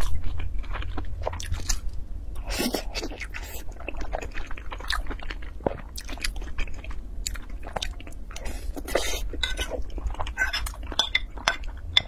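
Close-up mouth sounds of eating: wet chewing, biting and lip smacks on braised meat and rice, in quick irregular clicks over a steady low hum.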